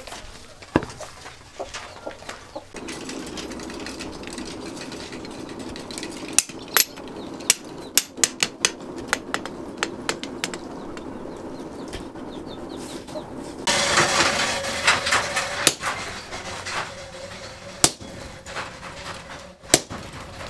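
Hand hammer striking hot axle steel on a stake anvil: scattered, irregular sharp metal blows, several in quick succession in the middle, over a steady low hum that comes in about three seconds in. About two-thirds of the way through, a louder, busy stretch of other noise lasts around three seconds.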